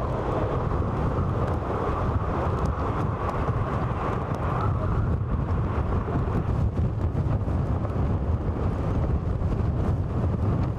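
Steady roar of storm wind and heavy surf breaking on the shore, with wind rumbling on the microphone.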